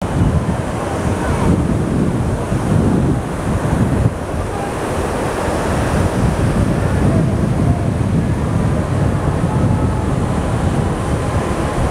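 Sea surf breaking and washing up a sandy beach, a loud continuous rush that swells and eases with each wave, with wind buffeting the microphone.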